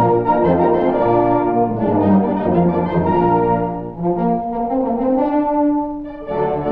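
Instrumental passage of an old-time dance-band recording, led by brass playing sustained chords. The sound is muffled, with little treble, as if playing from another room. A held note near the end gives way to a new phrase.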